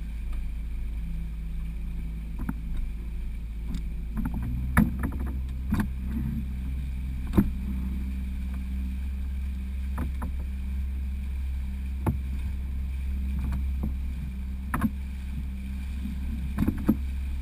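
Fishing boat's motor running steadily underway, a low hum whose note shifts slightly about four seconds in, with occasional short knocks.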